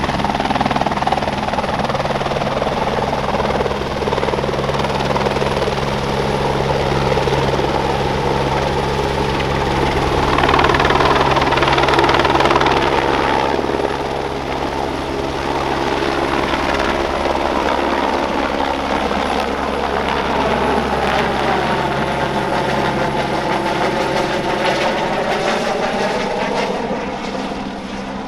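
Airbus AS350B3 Ecureuil helicopter, with its single Turbomeca Arriel 2B turboshaft, lifting off and climbing away carrying a bambi bucket on a long line. The rotor beat and turbine run steadily, loudest around eleven to thirteen seconds in. In the second half the sound sweeps in pitch and then fades near the end as the helicopter climbs overhead.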